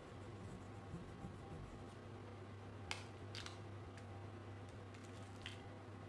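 A few light, sharp clicks of crayons knocking together as one is put back in the tray and another picked out, two close together midway and one near the end, over a steady low hum.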